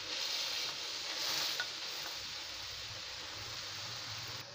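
Managu (African nightshade greens) sizzling in a steel pot over a gas burner, a steady hiss, with the leaves rustling as a wooden spoon turns them over. The hiss drops suddenly near the end.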